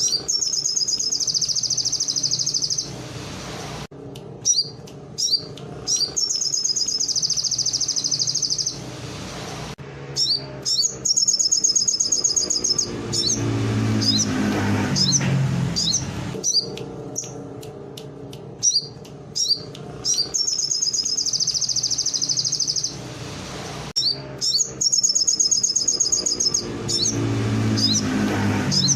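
A songbird singing canary-style song: bursts of a few quick high chirps, each followed by a long trill of about two seconds, the phrase coming again every few seconds. A low sound rises and falls underneath about halfway through and again near the end.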